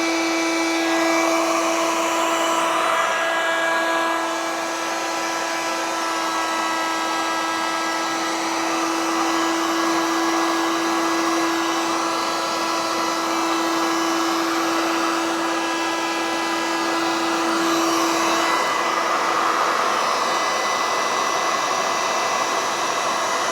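Hot-air gun running steadily with a constant whine, blowing hot air onto a seized model glow engine to soften its gummed-up old fuel.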